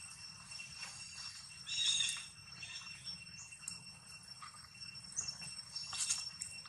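Forest ambience: a steady, high insect drone at several pitches, broken by brief sharper sounds about two seconds in and again near the end.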